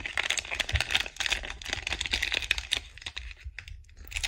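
Plastic wrapper of a sealed trading-card pack crinkling and crackling in the hands as it is gripped and worked open at the top. The crackling is a quick, dense run of small clicks and fades down about three and a half seconds in.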